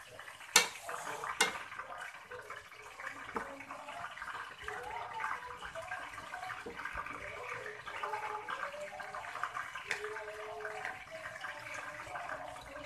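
Chopped pork sizzling and bubbling in a stainless steel frying pan while it is stirred with a wooden spatula. The spatula knocks sharply against the pan twice in the first second and a half.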